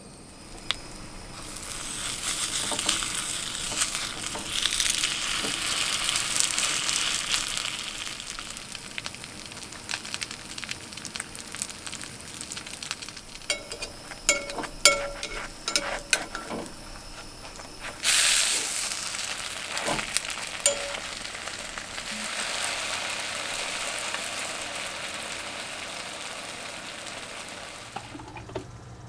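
Food sizzling in a hot frying pan. The sizzle starts about a second and a half in and dies down, a few sharp clinks of a utensil on the pan come in the middle, then fresh sizzling starts suddenly when more food goes into the hot oil.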